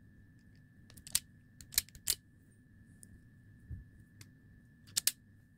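Insulation being stripped off a LiPo battery lead with a hand tool: sharp snips and clicks, three in the first couple of seconds and a quick pair near the end.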